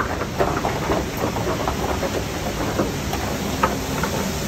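Footsteps and the tips of trekking poles clicking and tapping on a gravelly, icy trail over a steady rushing noise.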